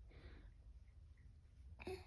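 Near silence: room tone, with a faint short rustle at the start and a brief faint click just before the end.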